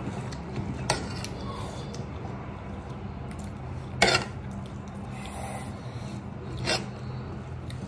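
A few short clinks of a metal serving spoon on the dishware: three knocks, the loudest about four seconds in. A steady low hum runs underneath.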